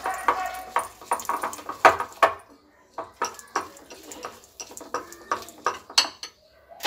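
Wire whisk beating thick besan (gram-flour) batter in a glass bowl, clicking and scraping against the glass in quick, irregular strokes while the flour and water are whisked smooth to keep lumps from forming.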